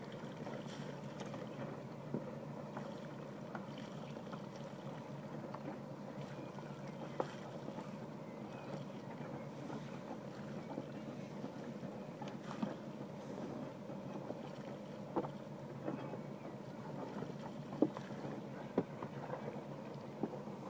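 Nautor's Swan 46 sailing yacht under way through calm water: a steady low running hum with water moving along the hull. A handful of light clicks and knocks are scattered through it.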